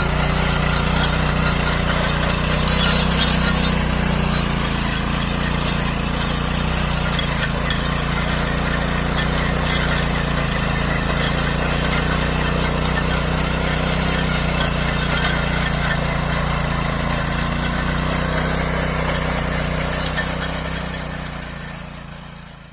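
Small engine of a walk-behind cultivator (mini tiller) running steadily while working soil, with a few brief knocks. The sound fades out near the end.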